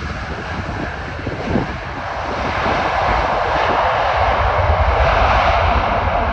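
Jet noise of an Emirates Airbus A380-861's four Engine Alliance GP7200 turbofans as the airliner lands: a steady rushing roar over a low rumble, growing louder from about two seconds in.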